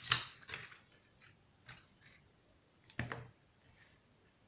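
Metal alloy bookmarks clinking against one another and tapping on a wooden table as they are handled and laid down: a quick run of clicks in the first second, then a few scattered ones and a louder knock about three seconds in.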